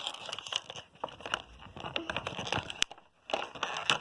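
Crinkling and clicking of plastic packaging and small plastic toy figures being handled, in a quick irregular series with a short pause about three seconds in.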